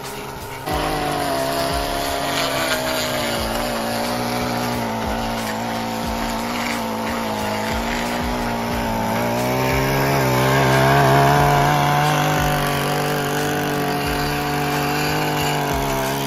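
Gas-powered stick edger running at high revs as its blade cuts the overgrown grass edge along a concrete driveway, its pitch wavering a little. It comes in suddenly under a second in and swells slightly past the middle.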